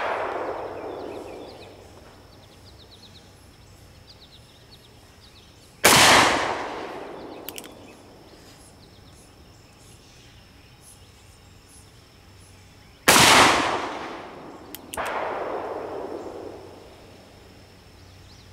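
Two loud black-powder shots from an original Colt 1860 Army cap-and-ball revolver, about 6 and 13 seconds in, each ringing out in a long echoing tail: the RWS caps firing on the refitted nipples. Two fainter bangs with long tails come right at the start and about 15 seconds in.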